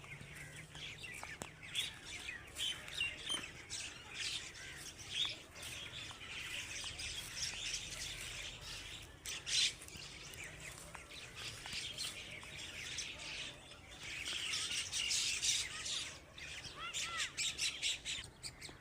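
Myna birds calling: a run of short, varied chirps, squawks and chattering notes, busiest about three-quarters of the way through.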